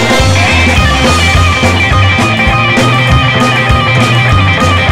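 Rockabilly band playing an instrumental passage: electric guitar over a walking bass line and a steady drum beat.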